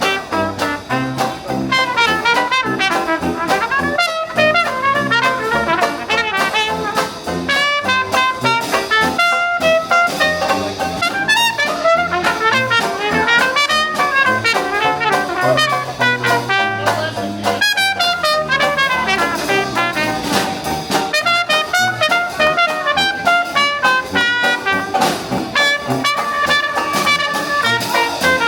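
Live Dixieland jazz band playing a tune, brass horns carrying the melody over a moving low bass line.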